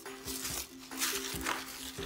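Background music with steady held notes, over which tissue paper and plastic wrap crinkle in short rustles several times as a wrapped bottle is lifted out of a box.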